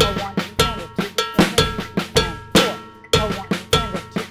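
Drum kit playing a slow, even Latin-funk groove: right hand on a ringing cowbell, left-hand snare strokes worked in as an inverted paradiddle with an accented backbeat on four, and bass drum underneath.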